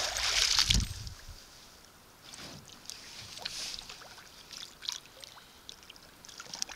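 A hooked northern pike thrashing at the water's surface, a loud splash in the first second with a low thump, then smaller splashes and water slapping as it is played beside the canoe.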